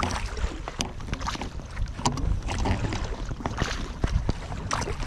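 A double-bladed kayak paddle stroking through the water to drive an Alpacka Mule packraft, with a splash every second or so as each blade dips in on alternating sides. A steady low rumble of wind on the microphone runs underneath.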